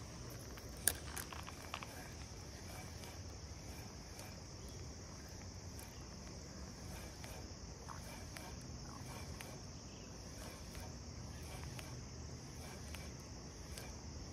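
Steady, high-pitched chorus of insects chirring, with one sharp click about a second in and two fainter clicks just after.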